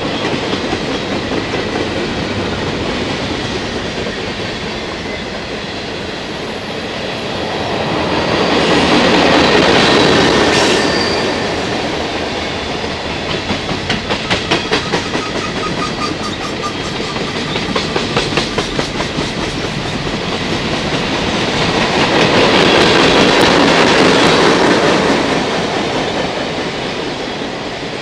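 Freight cars of a long CSX freight train rolling past, a steady rumble with the clickety-clack of wheels over rail joints. The noise swells louder twice, and in the middle there are quick runs of clicks.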